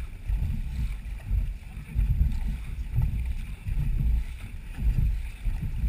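Dragon boat being paddled: a low rumble of water against the hull and wind, picked up on the boat itself, surging about once a second.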